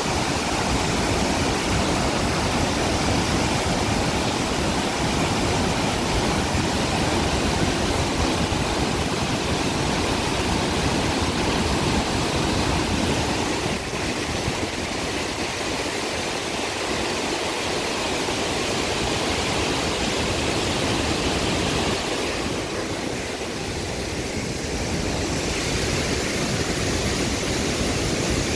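Floodwater pouring through the open spillway gates of the Sông Ba Hạ hydropower dam: a steady, loud rush of water, dipping slightly about four-fifths of the way in.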